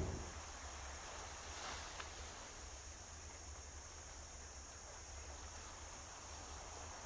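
Boat engine noise fades out in the first half-second. It leaves faint, steady shoreline ambience: an even high hiss over a low rumble.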